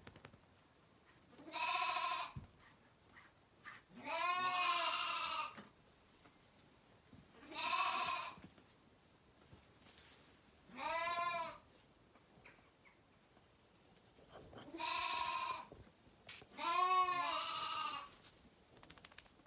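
Lambs bleating: six long, wavering bleats a couple of seconds apart. They are hungry lambs calling to be fed around bottle-feeding time.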